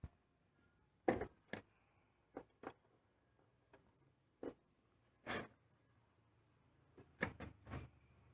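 Scattered light clicks and knocks, a dozen or so at irregular intervals, from hand tools and bolts being handled while the clutch master cylinder is unbolted.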